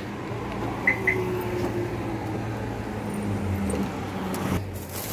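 A car engine idling steadily, with two short, high beeps about a second in.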